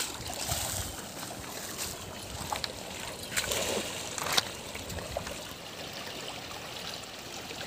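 Shallow river water running over stones, with a burst of splashing a little over three seconds in and a sharp splash about a second later as a thrown cast net hits the water around a wading fisherman.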